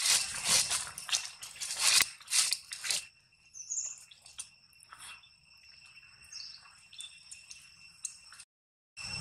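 Dense crackling and rustling for about three seconds, then a steady high insect drone with two short bird chirps. The sound cuts off suddenly near the end.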